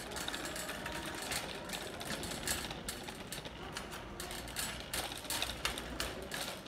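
Metal shopping cart rolling over a smooth store floor, its wire basket and wheels rattling with many irregular clicks over a low rumble.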